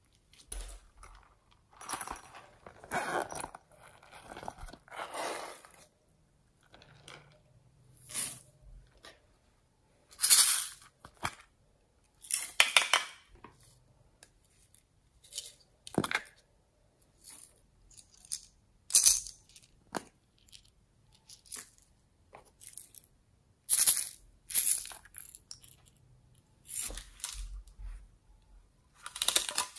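Intermittent handling noises of small plastic containers being picked up, tapped and turned, with crinkling rustles and a few sharp clicks, separated by silent gaps.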